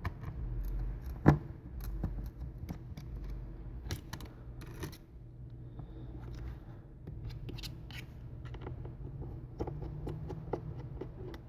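Small Phillips screwdriver working out the tiny screws of an iPad mini 3's internal bracket: scattered light clicks and scratches, with one sharper tap about a second in, over a low steady hum.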